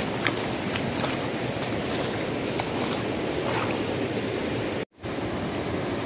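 Shallow stream rushing over stones, a steady rush of flowing water. It cuts out for a moment about five seconds in, then carries on.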